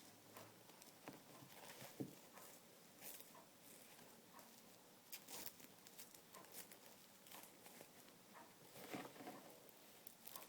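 Near silence with faint, scattered rustles and light taps from handling.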